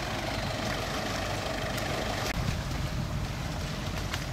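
Engine idling with a steady low rumble and a faint steady hum, with a few light clicks over it.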